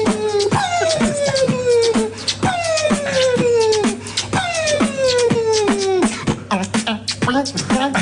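Mouth beatboxing by one man: sharp mouth-made kick and snare hits at about four a second under a held vocal note that slides slowly downward, the phrase repeating roughly every two seconds.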